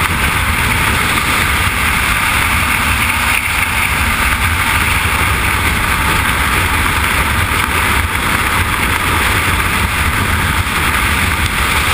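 Freefall wind rushing over a helmet-mounted camera's microphone: a loud, steady roar with a deep rumble of buffeting underneath.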